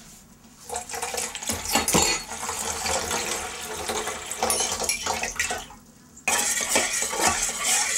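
Cold water poured from a glass measuring cup into a stainless steel mixing bowl, splashing on the metal. After a brief pause, a metal spoon stirs and scrapes around the steel bowl, mixing the cold water into the dissolved gelatin.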